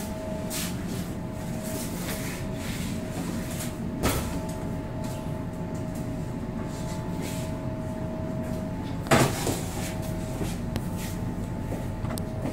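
A machine running with a steady hum, with a sharp knock about four seconds in and another about nine seconds in.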